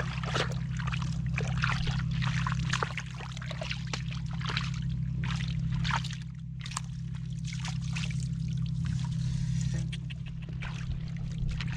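Water splashing and sloshing in quick, irregular bursts, over a steady low hum.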